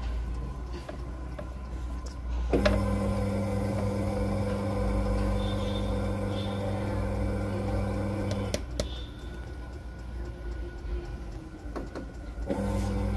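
LG TurboWonder 6.0 kg top-load washer on a spin-only cycle, with a low drum rumble throughout. The motor's steady hum switches on with a click about two and a half seconds in, cuts off with another click about six seconds later, and comes back near the end.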